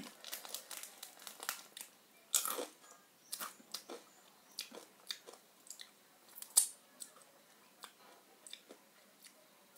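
A person chewing and biting crunchy food close to the microphone: irregular crisp crunches and clicks, a few a second, the sharpest about six and a half seconds in.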